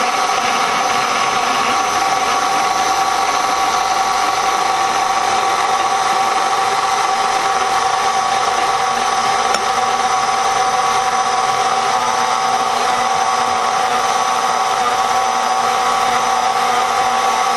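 Electric stand mixer running steadily at a constant speed, its motor and gears giving a steady whine as the dough hook turns flour and water into dough.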